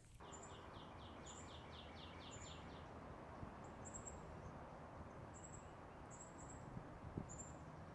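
Faint woodland ambience over a steady hiss. A bird gives a rapid series of falling notes, about four a second, for the first three seconds. High, thin chirps repeat every half second or so throughout.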